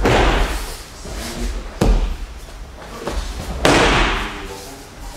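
Bodies landing on a padded mat in aikido throws and breakfalls: three heavy thuds about two seconds apart. The first and last are followed by about a second of noisy tail, and the middle one is short and sharp.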